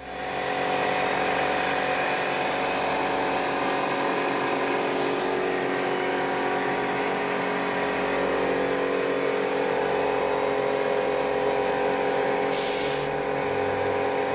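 Small electric air pump switched on and running steadily, its motor giving a steady hum, used to blow air into a sewn-shut duck to inflate it like a balloon. A short burst of hissing comes near the end.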